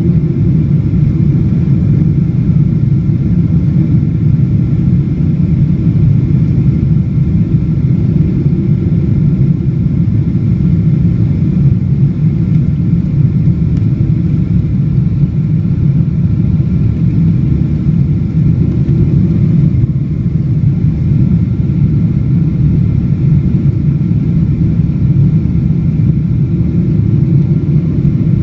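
Steady deep rumble of a Boeing 777-200 in flight, heard from inside the cabin: engine and airflow noise with a faint high whine over it.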